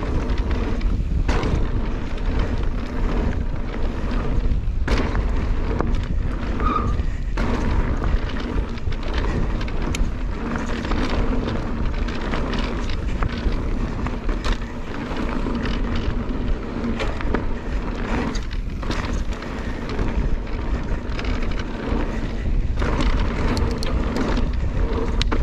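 Orbea Rise e-mountain bike riding fast down a dirt and gravel trail: steady rumble of tyres and wind on the microphone, with frequent knocks and rattles as the bike goes over bumps.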